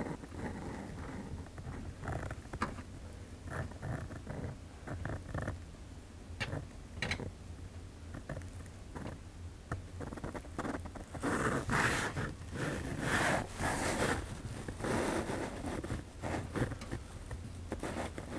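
Scratchy rustling, rubbing and small clicks from hands working a track feeder wire into place at a model railroad layout, with a louder stretch of scraping starting about eleven seconds in and lasting several seconds.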